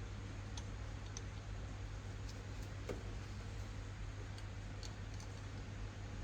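Faint scattered clicks and light taps of parts being handled, the clearest about three seconds in, over a steady low hum.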